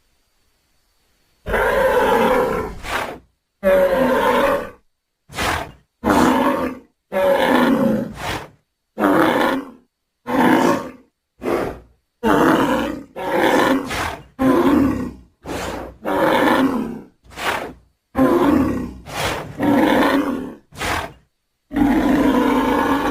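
Sound effects for a cartoon bull: a string of about twenty short bellows, grunts and snorts, each a second or less and cut apart by brief silences, starting about a second and a half in.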